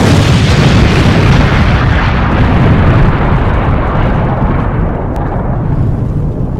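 Intro sound effect of a fiery explosion: a loud, sustained blast of noise with a deep rumble underneath that starts at once, its hiss slowly thinning out over the seconds.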